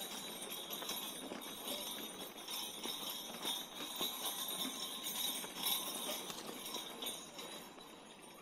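Mooncool TK1 electric trike rattling and jingling as it rolls over a rough trail, a busy stream of small metallic clicks and clinks from the jolting frame and load.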